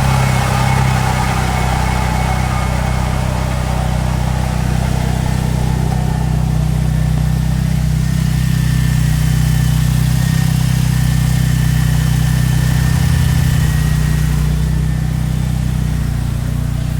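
VW Gol wheel bearing droning as the wheel spins down, over the car's engine running steadily; a whine falls in pitch over the first few seconds. The noise is very loud: the bearing is worn.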